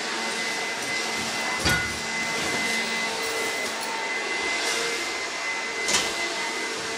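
Steady machine whirring with a constant high whine, and two dull knocks, about two seconds in and again near six seconds.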